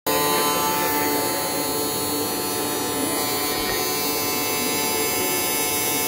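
High-speed electric milling spindle on a Fanuc R-2000iC robot arm routing a slot in a wooden beam: a steady whine with a hum, running unbroken.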